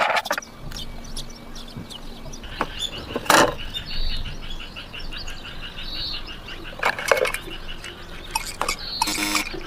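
A rapid run of short high chirps, with a few sharp clatters, the loudest just after three seconds in and again near seven seconds.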